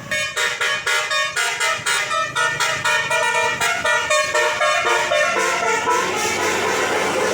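Bus telolet horn, a multi-note 'basuri' air horn, playing a quick melody of short stepped notes. It starts abruptly and runs about six seconds before trailing off.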